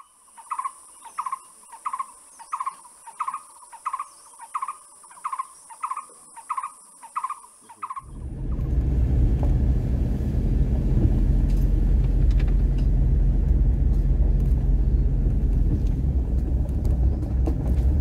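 A short call repeats about twice a second over a steady high hiss. About eight seconds in, it gives way to the steady low road rumble of a car driving along a dirt track, heard from inside the car.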